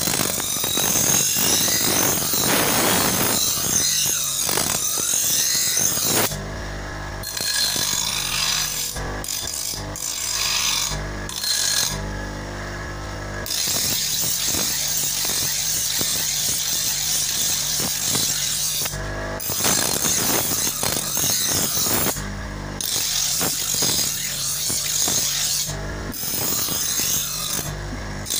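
Steel sickle blade being ground on a spinning grinding wheel to shape its teeth: a loud, continuous grinding hiss that breaks off briefly several times as the blade comes off the wheel, leaving the wheel's steady hum.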